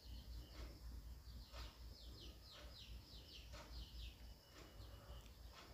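Faint bird chirping: runs of short, high, falling chirps, repeated over and over against near-silent room tone.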